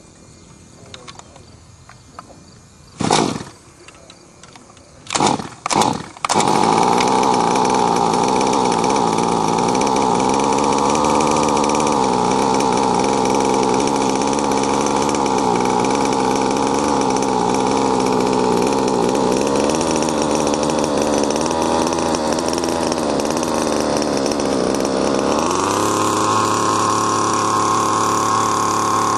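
Zenoah G26 two-stroke gas engine of an RC helicopter being started: a few short bursts as it is cranked, then it catches about six seconds in and runs steadily at idle. Near the end the engine speed steps up sharply and holds higher as the throttle is opened.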